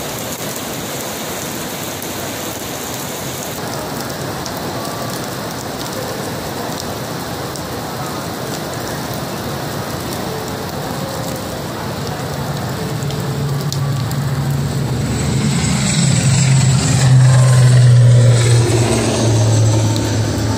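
Heavy rain falling steadily. About two-thirds in, the drone of an ATR 72 turboprop airliner at takeoff power swells up over the rain and becomes the loudest sound, with a low steady hum from the propellers, as the plane lifts off and climbs away.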